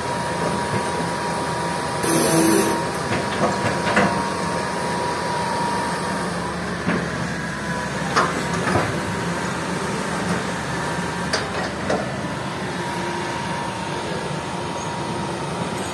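Hitachi EX200 tracked excavator's diesel engine running steadily under hydraulic load as the machine swings and works its bucket, with a thin high steady whine. Several sharp metallic clanks and knocks sound over it, the loudest about two seconds in.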